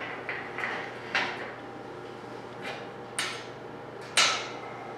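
A handful of short metallic clanks and knocks of metal being handled, about six spread out, the loudest about four seconds in.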